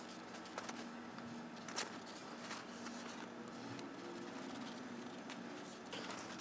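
Faint handling noises, a few light clicks and taps with the sharpest about two seconds in, over a steady low hum.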